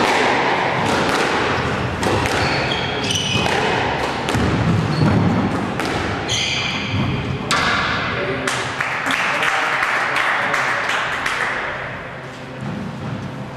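Squash rally: the ball cracking off rackets and thudding against the court walls in a run of sharp knocks, with two short shoe squeaks on the court floor.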